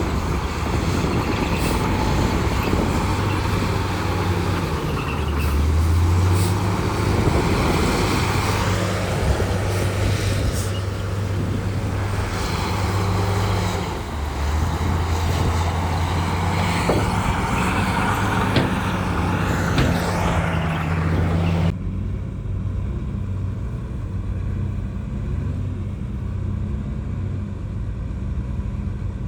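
Heavy diesel earthmoving machinery running under load, the engine note rising briefly about six seconds in, with scattered metallic knocks and rattles. About three-quarters of the way through, the higher rattle and hiss drop away abruptly while the low engine tone carries on.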